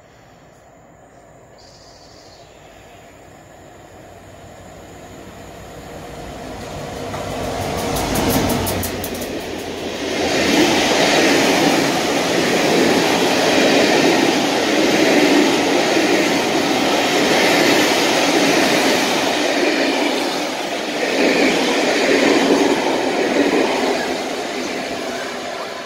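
A passenger train passing at speed: the leading class 67 diesel locomotive grows louder and goes by about eight seconds in, followed by the loud, steady rush of the Pullman coaches' wheels on the rails, swelling and dipping as each coach passes.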